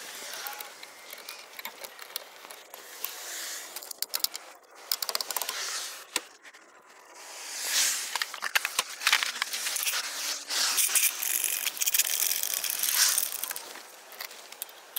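Irregular metal scraping and jingling from hand work on the wheel studs and lug nuts, with a run of short clicks and scrapes that swells twice, once around the middle and again near the end.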